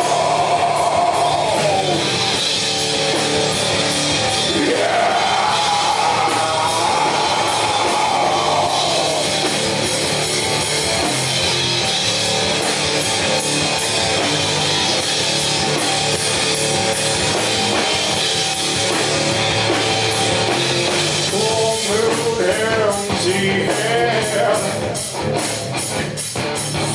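Live rock band playing: electric guitar, bass guitar and drum kit, with a melodic line sliding up and down in pitch in the first half and another warbling line near the end.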